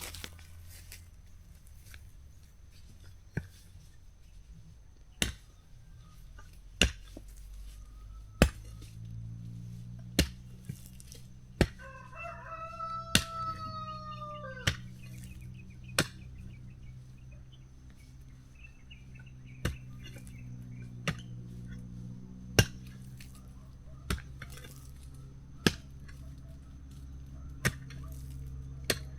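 A rooster crows once, about halfway through, a single call of about three seconds. Sharp, loud clicks come every second or two throughout, and a low steady drone sets in about a third of the way in.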